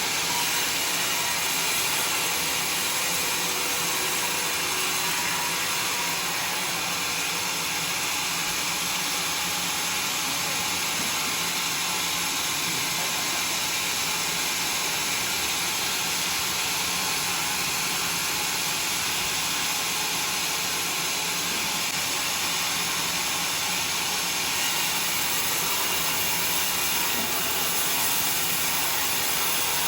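Sawmill saw running steadily, a continuous hissing machine noise with no breaks.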